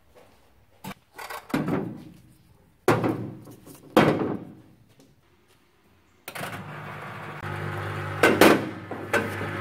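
Heavy metal screw-jack parts knocking and clunking as they are set down in a plastic parts-washer sink. About six seconds in, the parts washer's pump starts with a steady hum and a rush of cleaning fluid from its hose, with a couple more knocks of parts in the sink.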